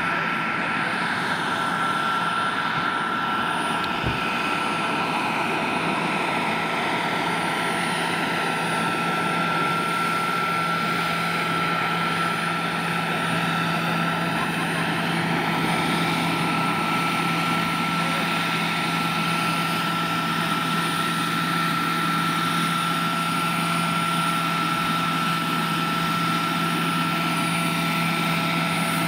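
Large radio-controlled scale Aérospatiale Gazelle helicopter in flight, its Jakadofsky Pro 6000 model gas turbine running steadily with a constant high whine over the whir of the main rotor.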